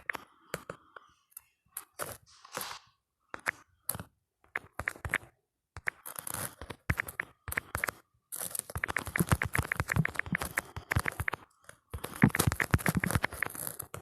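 Phone on-screen keyboard click sounds from fast typing: scattered taps at first, then long quick runs of clicks near the middle and the end, broken by short pauses.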